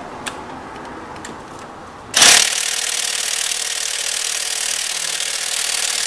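A couple of light clicks, then about two seconds in an electric ratchet on a 17 mm socket and extension starts with a sharp burst and runs with a steady whir against a tight engine mount bolt. The bolt is not breaking loose: the tool lacks the power.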